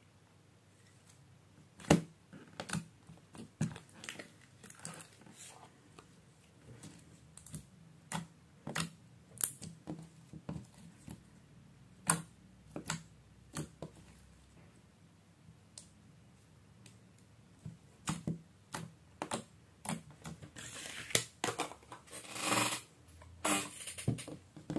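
Clear slime being stretched, folded and mixed by hand and set down on a wooden table, making irregular sharp clicks and small pops, with a few longer sounds near the end.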